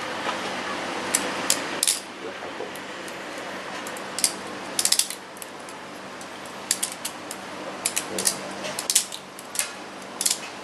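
Balisong (butterfly knife) spun in a windmill drill: the handles and blade clicking and clacking against each other in irregular clusters of sharp metallic clicks as the knife is flipped open and closed.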